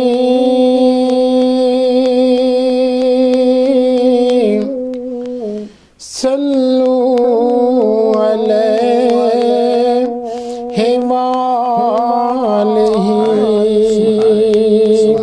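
Naat singing without words between verses: long held vocal notes with a humming backing, breaking off briefly about six seconds in before a new phrase begins.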